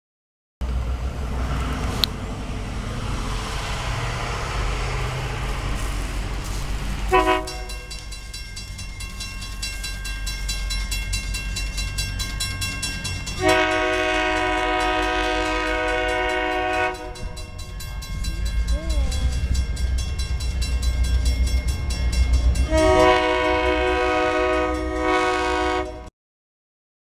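Freight train's diesel locomotives approaching, their engines a low steady rumble, while the lead locomotive blows its air horn, several notes sounding together. A long blast begins about seven seconds in and grows louder partway through, and a second blast comes near the end as the locomotives draw close.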